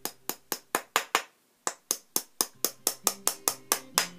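Small hammer tapping wooden pegs into glued holes in a wooden toy truck body: quick, light wood-on-wood strikes about five a second, with a short pause a little over a second in.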